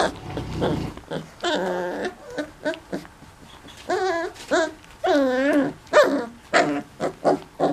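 Four-week-old mastiff puppies play-fighting, giving short yips and barks and high whining whimpers, with a longer wavering whine about five seconds in.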